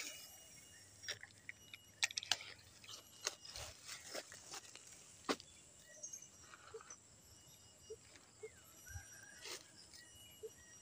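Scattered clicks and brief rustles of a handheld phone being handled and moved about, with a few faint high chirps in the background.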